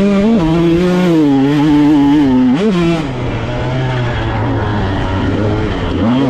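Off-road dirt bike engine racing on a cross-country trail, held high with two quick throttle blips, then dropping to a lower, rougher pitch about halfway through before rising again near the end.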